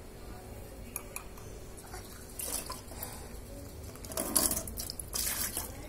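Water from a tap splashing into a ceramic cup held under it, in three short spells, loudest about four seconds in, with a few light clinks of the cup earlier.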